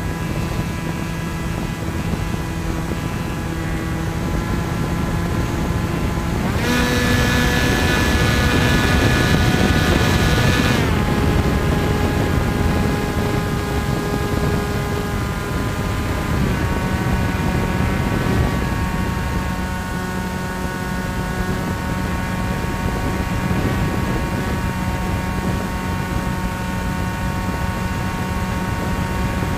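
Bixler foam RC plane's electric motor and pusher propeller whining steadily, heard from a camera on the plane, with wind rush. About seven seconds in the throttle opens, and the whine goes higher and louder with more hiss; it drops back about four seconds later, and the pitch steps up slightly again about sixteen seconds in.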